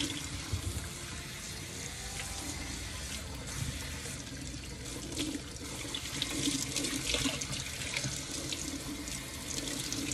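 Kitchen sink tap running while shampoo is rinsed out of hair, water splashing irregularly through the hair into the basin.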